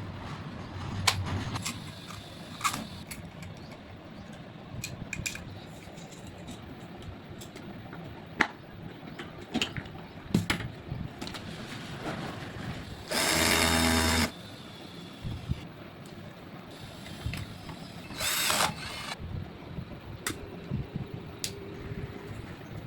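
Scattered small clicks and knocks of hand work on a table fan motor. About halfway through, a loud pitched buzz lasts just over a second, and a shorter, similar buzz comes about five seconds later.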